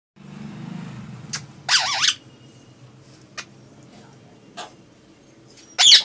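Rose-ringed parakeet calling: a loud warbling call about two seconds in, and another starting right at the end, with a few faint clicks between.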